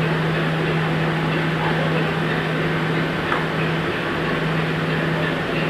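Steady hum of a passenger ship's onboard machinery: one low, unchanging drone over an even wash of noise.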